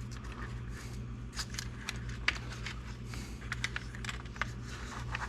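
Light, irregular clicks and taps of small plastic and metal RC car parts being handled and moved about on the chassis, over a steady low hum.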